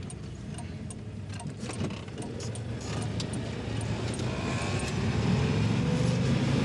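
Keys jangling and clicking at a car's ignition, then the car's engine running, getting louder from about three seconds in and rising in pitch as it accelerates.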